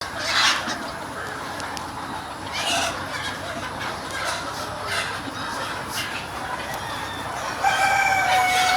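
Free-range chickens clucking and calling, in short scattered calls, with one long drawn-out steady call starting near the end.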